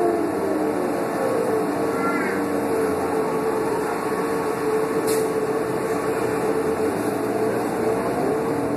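A New Flyer D40LF transit bus under way, heard from inside the passenger cabin: its Cummins ISL inline-six diesel drones with a steady whine from the Allison automatic transmission, and the pitch starts to rise near the end as the bus accelerates. A brief click sounds about five seconds in.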